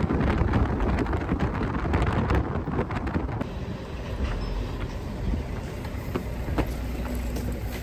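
Road vehicle driving: a steady low rumble with continual small rattles and knocks.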